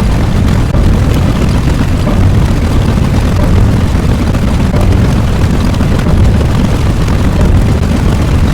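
A loud, steady rumble, deep and noisy, with no clear pitch.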